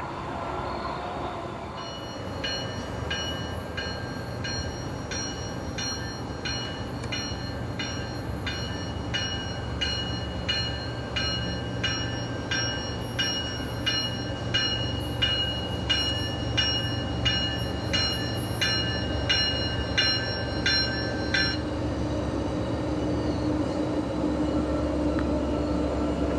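Train at the station with its locomotive bell ringing steadily, about one and a half strokes a second, over the low rumble of the train; the bell stops a few seconds before the end while the rumble goes on.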